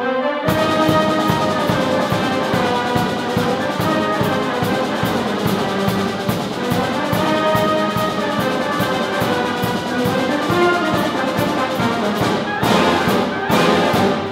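Military concert band playing: brass and saxophones over a drum kit keeping a steady beat. The full band comes in loudly about half a second in, with two strong accented hits near the end.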